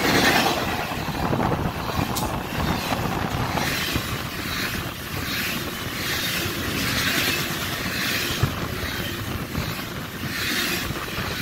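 Doublestack container freight train rolling past close by at speed: a steady rumble and rush of wheels on rail, swelling in a regular rhythm about every second and a half.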